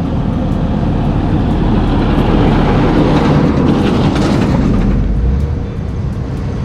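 A vehicle on the move: a loud, steady rumble of road and engine noise that swells slightly in the middle.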